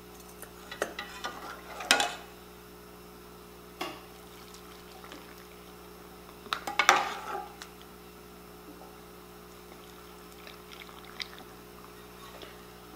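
Hot beef broth ladled through a stainless steel canning funnel into glass canning jars: splashy pouring with clinks of the metal ladle and funnel against the jars and pot, in two main bursts about 2 s and 7 s in, with a single knock near 4 s. A steady faint hum sits underneath.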